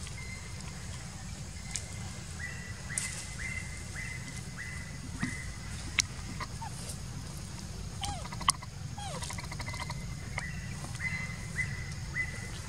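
Animal calls: a short high note repeated about twice a second in two runs, with a few short falling calls and a couple of sharp clicks in between, over a steady low rumble.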